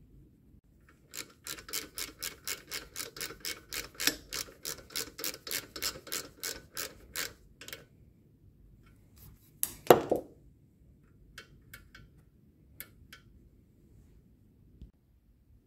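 Socket ratchet clicking steadily, about four clicks a second for several seconds as it turns a fitting on the carburetor. A single loud knock follows near the end, then a few light clicks.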